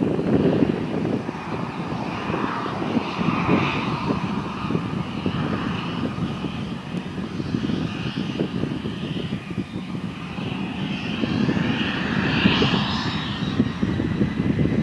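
Twin turbofan engines of a Cessna Citation CJ (C525) business jet at taxi power: a steady jet whine over a rumble. The whine swells about twelve seconds in as the jet moves past.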